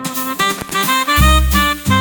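Upbeat swing-style background music with horns and a strong bass that comes in about a second in.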